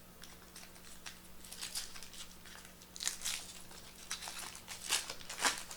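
Baseball trading cards being handled and flipped through by hand: a run of short, soft brushing strokes, with a few louder ones about three and five seconds in.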